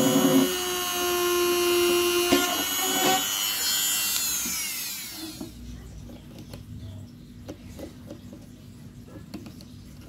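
High-speed rotary tool whining as it cuts a slot in PVC pipe. About four seconds in it is switched off and its whine falls away as it spins down. After that come faint clicks and scrapes of the cut plastic being handled.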